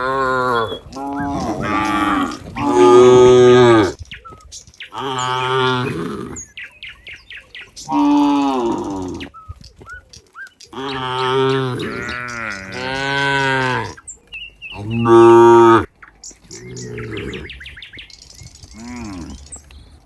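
Cows mooing, one long call after another, about ten calls with short pauses between them.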